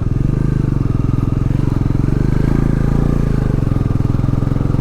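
Motorcycle engine idling steadily, with a fast even pulse from its firing strokes.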